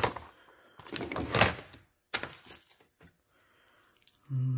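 Rummaging through a tool bag: rustling and clunking as items are handled, with a sharp knock about a second and a half in. A short hum from the man comes near the end.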